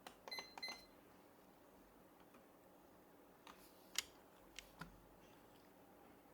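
Two short, high electronic beeps in quick succession from a digital kitchen timer, followed a few seconds later by four scattered sharp clicks, the loudest about four seconds in.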